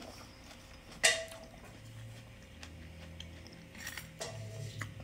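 Metal fork clinking on a plate: one sharp clink about a second in and a few lighter clicks near the end, with faint eating sounds between.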